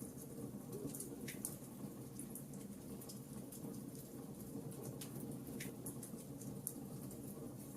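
Wood fire in a fireplace crackling: frequent small, sharp pops and snaps at irregular intervals over a steady low background of the burning fire.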